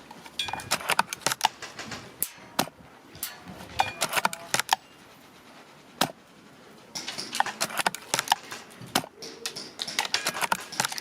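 Irregular sharp clicks and clacks of airsoft guns being fired and worked, with a few louder single cracks about two and six seconds in and a denser run of clicking in the last few seconds.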